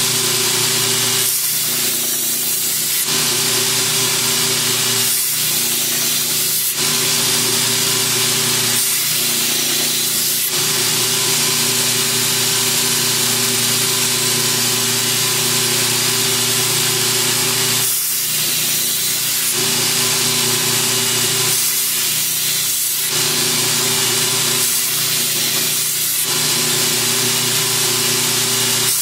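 Belt grinder running with an 80-grit silicon carbide belt, the kukri machete's edge being ground against it to reprofile a dull, flat edge. The motor's steady hum runs under a loud grinding hiss that briefly eases every few seconds as the blade lifts between passes.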